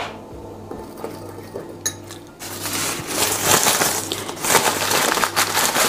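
A metal spoon clinks once against a small ceramic bowl. About two and a half seconds in it starts stirring and scraping round the bowl through dry ground spices: a continuous gritty scraping dotted with small clinks.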